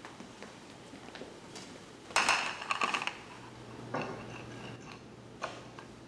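A plate hitting a tile floor and clattering about two seconds in, with a few quick ringing knocks. A lighter clink near four seconds and another short knock later.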